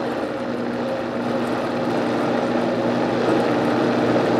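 Vitamix high-speed blender motor running, churning cream into butter, growing steadily louder as its speed is turned up.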